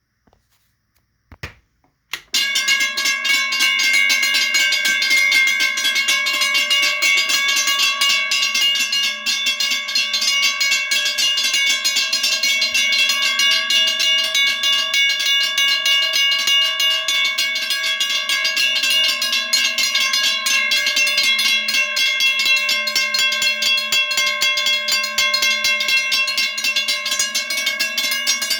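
Three Western Railroad Supply (WRRS) electromechanical railroad crossing bells ringing at once, their hammers striking the gongs rapidly in a dense, overlapping clatter over a steady ringing tone. They start abruptly about two seconds in, after a few faint clicks.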